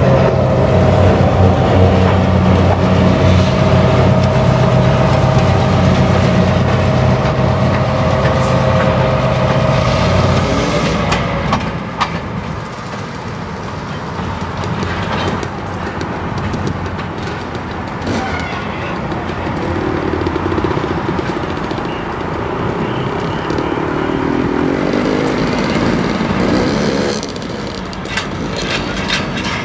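EMD diesel switcher locomotives running with a steady, pitched drone as they pull away. The engine sound fades about ten seconds in, leaving a lower rumble of the rail cars rolling off, with a few sharp clicks.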